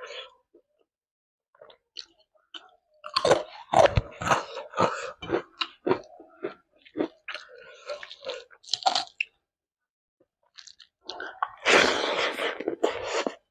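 A person chewing a mouthful of rice with chickpea curry and egg close to the microphone: irregular wet mouth clicks and crunches in bursts, with a short pause about two-thirds of the way through before a denser stretch of chewing.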